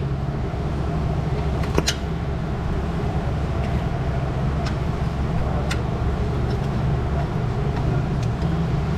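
Steady low mechanical hum in a workshop, with a few light clicks of a metal pick tool prying at a plastic sensor connector in an engine bay.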